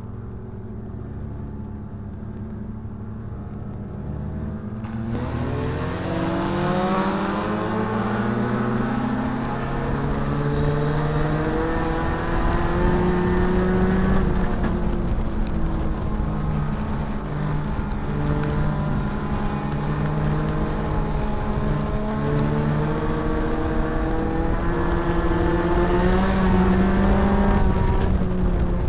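Sport compact race car engines heard onboard one of the cars: a steady lower engine note for about five seconds, then the engines rev up hard and run at high revs, their pitch rising and falling with gear changes and corners.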